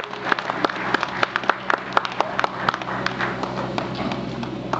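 Crowd applauding, many irregular claps that thin out near the end.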